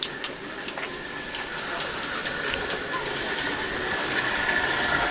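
A steady hiss that grows gradually louder, with a few sharp clicks in the first second.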